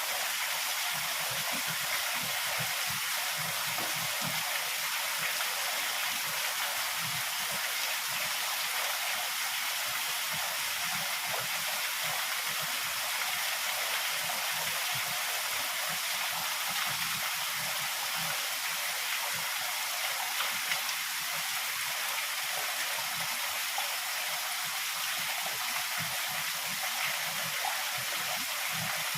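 Heavy rain falling in a steady, even hiss, with no thunder in this stretch.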